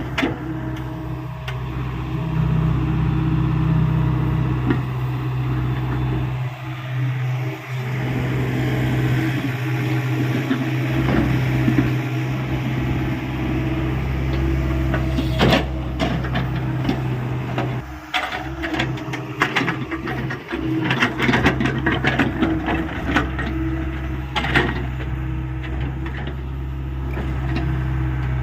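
Hyundai 85A mini excavator's diesel engine running steadily under hydraulic load during digging. Bursts of knocks and clatter come from the digging, most densely a little past the middle.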